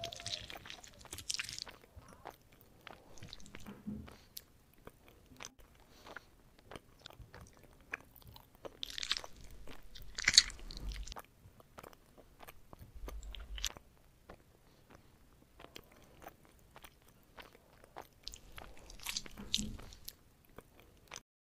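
A tiny metal spoon cutting into a soft coffee jelly in a ceramic dish: soft squishy crunching with many small clicks and scrapes of metal on ceramic. The sound comes in louder clusters near the start, about halfway through and near the end.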